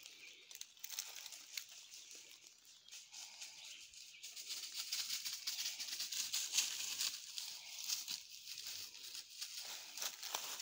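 Footsteps crunching through dry leaf litter in a stream of irregular crackles. Under them runs a steady high hum of summer insects.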